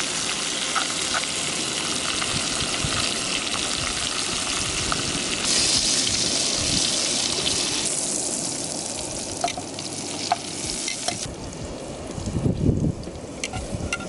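Salmon fillets and onions sizzling in butter in a frying pan, the hiss growing brighter around the middle. From about nine seconds in, metal tongs click against the pan as the onions are scooped out, and the sizzling thins out.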